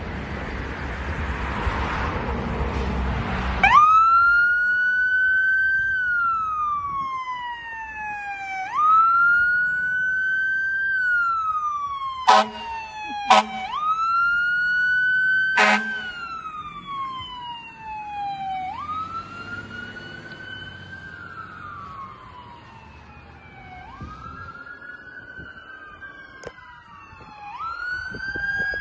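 2023 Rosenbauer Commander fire engine's siren wailing, each cycle rising then falling over about five seconds, after a few seconds of rumbling noise. About midway there are three short blasts of its horn. The wail fades as the engine moves off, and a second siren starts up near the end.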